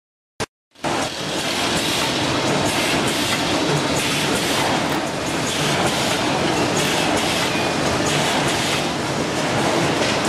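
Steady, dense mechanical noise of packaging machinery running on a factory floor (bag-packing machines and conveyors), cutting in abruptly about a second in.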